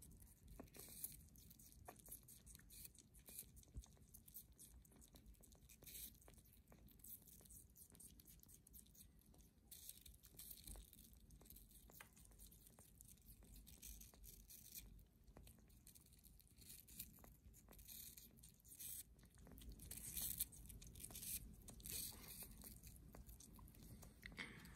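Sugar gliders biting and chewing a piece of fruit: faint, quick crunching and tearing clicks in uneven bursts, a little louder about twenty seconds in.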